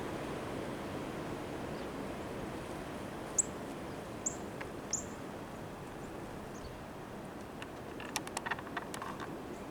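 Steady outdoor background noise with three short, high, downward chirps a little under a second apart, then a quick cluster of sharp clicks near the end.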